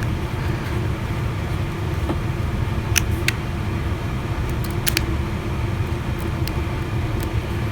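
A few light clicks and taps from handling a phone over a steady low background hum.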